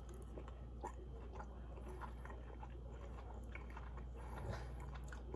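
A person chewing a bite of soft steak, with small scattered wet clicks over a low steady hum.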